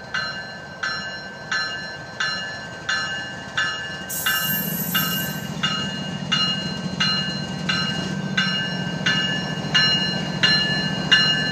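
Diesel locomotive bell ringing steadily, about one and a half strikes a second, as a Florida East Coast GE ES44C4 rolls slowly past. The locomotive's diesel engine comes in as a low rumble about four seconds in, and the bell grows louder toward the end as the engine draws level.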